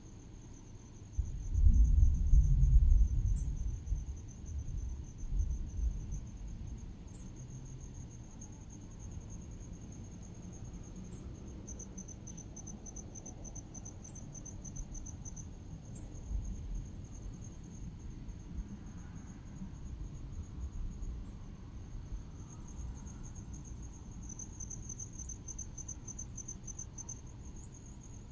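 Crickets chirping in a steady, high, pulsing trill, with brief sharp high ticks every few seconds. A low, gusty rumble of wind on the microphone starts about a second in and lasts several seconds; it is the loudest sound.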